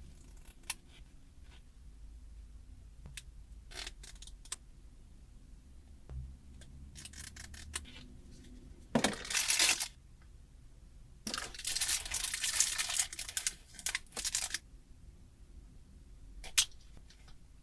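Unboxing handling noise: scattered clicks and taps of packaging being handled, with two bursts of rustling, about nine seconds in and again from about eleven to fourteen seconds, as packaging is torn or crinkled.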